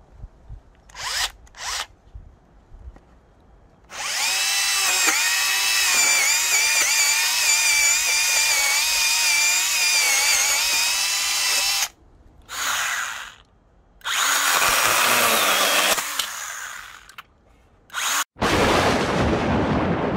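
Bosch EasyCut 12 cordless nanoBLADE saw: two brief trigger blips, then a long run as its small chain cuts into a wooden post, the motor's whine wavering in pitch under load, followed by two shorter bursts. Near the end a sudden rushing noise swells and fades.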